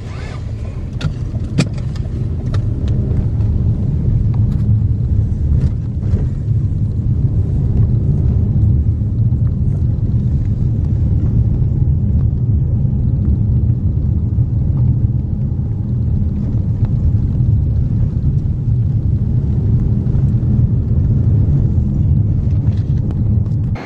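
Steady low rumble of a car driving, heard from inside the cabin, growing louder over the first few seconds, with a few light clicks near the start.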